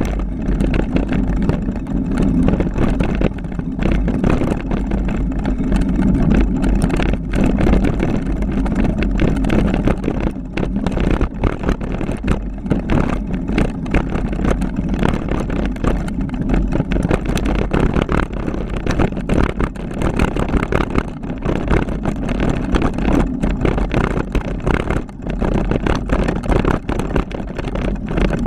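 Mountain bike descending a rough downhill trail: continuous rattling and knocking of the bike and a GoPro Hero3 camera over bumps and jolts, with a low rumble of wind and rolling tyres.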